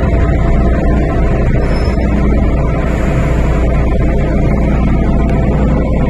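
MTR Tsuen Wan Line M-Train (car A267) running with a steady low rumble and wheel noise as it pulls along a station platform, heard from inside the car beside the doors; the rumble drops away right at the end as the train comes to a stop.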